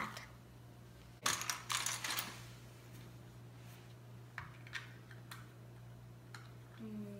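Small plastic Lego bricks clattering and clicking as they are handled and pressed together, with a louder burst of rattling about a second in and scattered light clicks after it. A steady low hum runs underneath.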